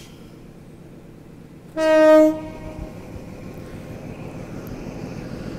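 XPT train's horn sounding one short blast, about half a second long, over a low train rumble that slowly grows louder.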